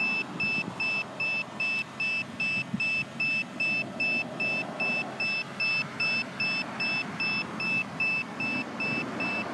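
Electronic beeper sounding short high-pitched beeps at an even rate of about two a second, over a faint background hiss.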